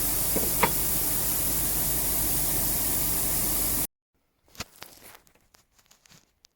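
Steady hiss with a low mains-like hum and a single faint click, then an abrupt cut to silence about four seconds in, followed by faint scattered clicks and knocks.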